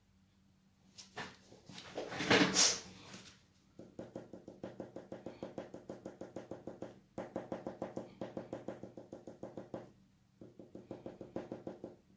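Cretacolor Mega Color pencil scratching on Arches paper in short quick strokes, about four a second, pausing briefly twice. A brief loud rustle of the hand against the paper comes about two seconds in, before the strokes start.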